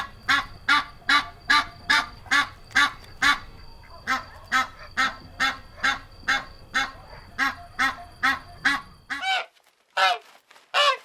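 Goose honking in a fast, regular series, about two to three honks a second. Near the end the background noise drops away and a few separate, louder honks follow, about a second apart.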